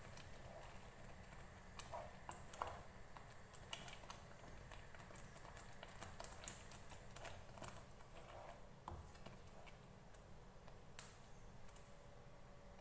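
Faint, scattered soft taps and clicks of a wooden spoon stirring thick dhal in a nonstick frying pan, thinning out near the end.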